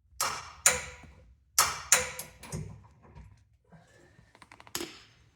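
Metal hand tools clanking and clinking as they are handled, with about six sharp, ringing strikes in the first two and a half seconds. Then comes a short run of quick clicks and one more clank.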